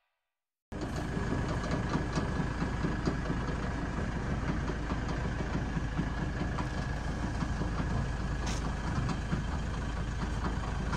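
An engine running steadily, an even low drone with no change in level.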